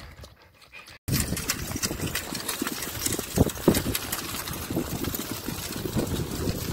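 Wheeled dog cart rolling and rattling steadily over a dirt track as dogs pull it, with two sharper knocks about three and a half seconds in. It starts abruptly about a second in, after a brief faint stretch.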